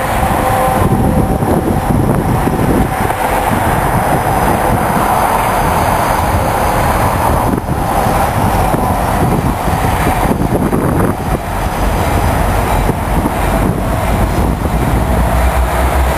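Buffalo & Pittsburgh EMD SD60 diesel locomotives approaching with a freight train, giving a loud, steady rumble. A deep engine drone swells near the end as the locomotives draw closer.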